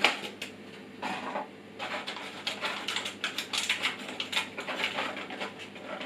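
Small metal screws clicking and rattling as they are picked through and handled on a tabletop: a short cluster about a second in, then a dense, irregular run of light clicks.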